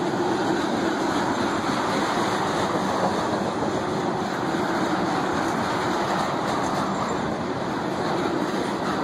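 Freight train tank cars rolling past close by, a steady rumble and rattle of steel wheels on the rails.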